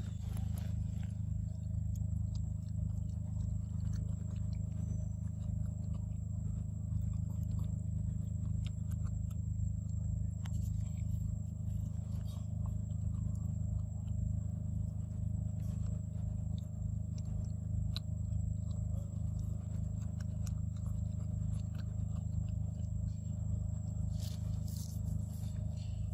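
A monkey eating a mango: faint scattered clicks and scrapes of biting and chewing over a steady low hum.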